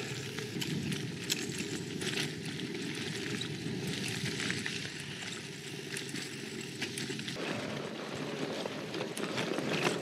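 Mongoose Selous Comp gravel bike rolling along an unpaved path: steady tyre noise with scattered small crunches and clicks from the surface and the bike.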